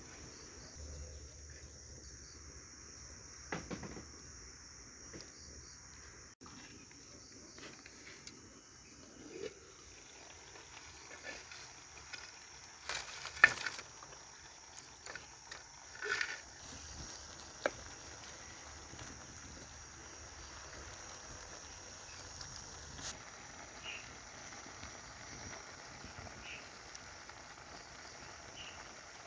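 Wood fire crackling under a clay cooking pot, with scattered sharp pops and snaps; the loudest is a single sharp snap about halfway through. A steady high-pitched insect drone runs underneath.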